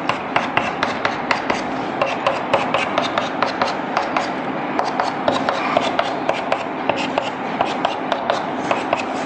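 Chalk on a blackboard: a quick, steady run of sharp taps and short scratches, about four a second, as rows of small plus signs are chalked in.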